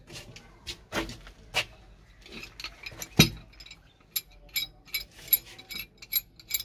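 Metal clicks and knocks of a wrench working on a hand pump's pipe fittings: a few loud knocks, then a run of lighter clicks about three a second in the second half.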